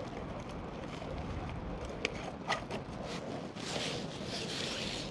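Wind rumbling on the microphone, with a couple of sharp clicks of handling a little after two seconds in and a brief hiss near four seconds.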